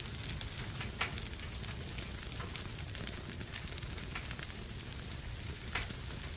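Wood fire burning in a fireplace: a steady hiss with scattered crackles and pops, a louder pop about a second in and another near the end.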